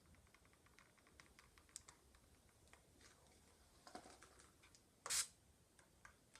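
Quiet ASMR tapping: many light, irregular taps and clicks, rather like typing, with one brief louder scratch about five seconds in.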